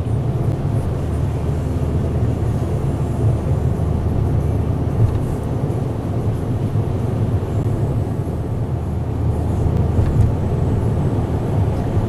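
Steady low rumble of road and engine noise heard inside a car driving on a snow-covered highway.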